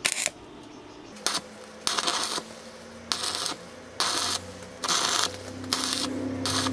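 Stick-welding arc crackling and hissing in short bursts, about eight of them, each under half a second and roughly one a second, as the electrode is struck and broken off on the pincers' steel, with a low hum between bursts.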